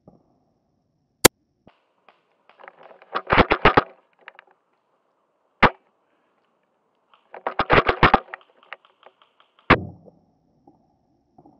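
Airsoft gunfire: three single sharp shots about four seconds apart, with two short bursts of rapid shots falling between them.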